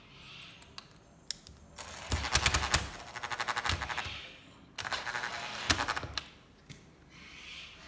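Cordless drill driving screws into the window frame in two bursts, the first about two seconds long and the second shorter, each a fast rattling run of ticks.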